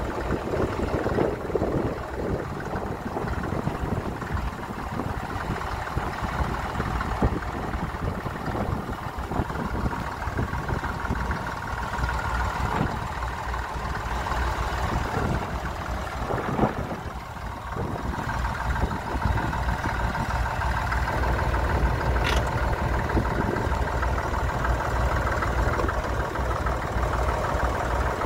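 Massey Ferguson 35 diesel tractor engine idling steadily.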